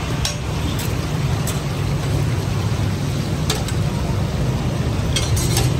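Busy food-stall din: a steady low rumble of road traffic over the hiss of kababs frying in a wide iron pan of oil, with a few sharp clinks of a metal spatula against the pan.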